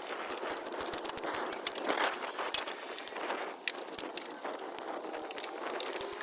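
Irregular clicks and light knocks of hands and tools working in a car's engine bay as an oil catch can is loosened and moved aside.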